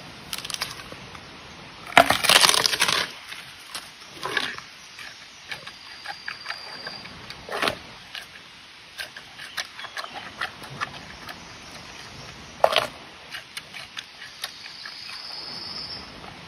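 Giant panda biting and chewing bamboo: irregular woody crunches and cracks, the loudest a burst of crunching about two seconds in and a sharp crack near thirteen seconds.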